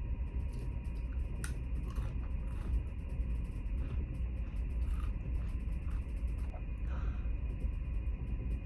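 Steady low rumble of the car ferry's engines heard from inside the ship, with a few faint clicks and ticks.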